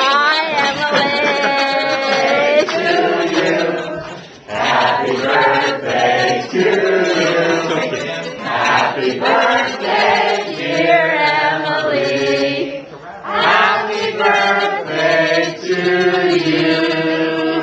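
A group of people singing together, loud and close, with held notes and a couple of short breaks between phrases.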